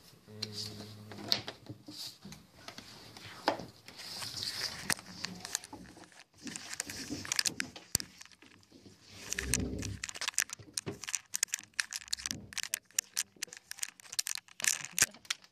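Handling noise: irregular clicks, knocks and crinkling, growing denser in the second half, with a dull thump about nine and a half seconds in.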